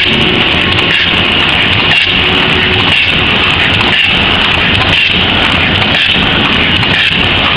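Automatic paper cup forming machine running, its rotary turret of cup mandrels cycling, with a loud, steady mechanical clatter and a faint regular beat about once a second.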